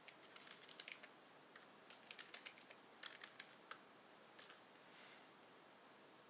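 Faint computer keyboard typing: short runs of quick keystrokes with brief pauses between them.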